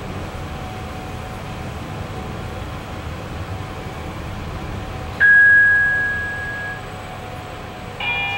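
Sigma Solon NV traction elevator car travelling down with a steady low hum. About five seconds in, a single loud bell ding rings out and fades over about a second and a half: the arrival chime as the car reaches its floor. Near the end a second, higher sound of several steady tones begins.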